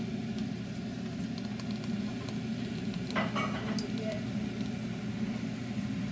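Vegetable kebabs sizzling on an indoor countertop grill over a steady low fan hum, with a few light clicks and a short clatter about three seconds in.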